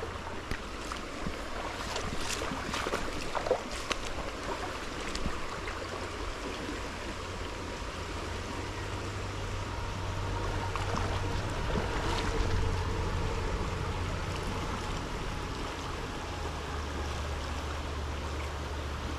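Stream water running steadily, with a few short clicks and knocks about two to four seconds in and again about twelve seconds in.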